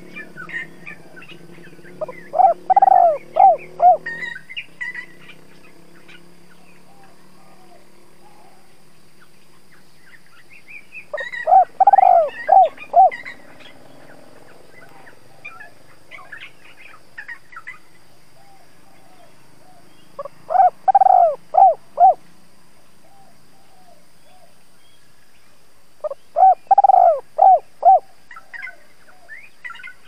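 Spotted dove giving its territorial calling coo: four phrases, each a quick run of several coos, spaced roughly six to nine seconds apart. It is the call a decoy dove uses to provoke wild spotted doves.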